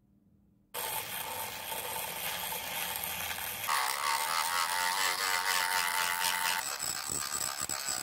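Dremel rotary tool with a sanding drum grinding rust off the chrome-plated metal cap of an old lighter. It starts abruptly under a second in, and its tone changes about four seconds in and again near seven seconds.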